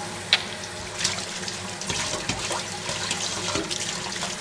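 Kitchen tap running into a stainless steel sink while a stainless steel mixer-grinder jar is rinsed and scrubbed with a sponge, with a few light knocks.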